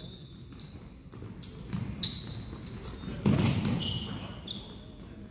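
Basketball game play on a hardwood gym floor: sneakers squeak in short high chirps many times and the ball bounces. A burst of voices comes about three seconds in, with the sound echoing around the gym.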